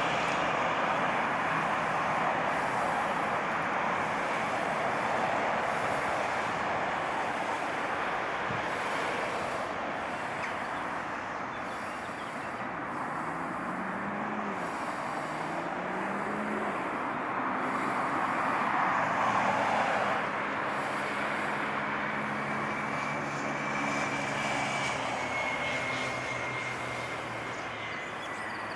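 Steady engine noise with a continuous hiss. About halfway through, a low engine note rises twice, and near the end a thin high tone falls slowly.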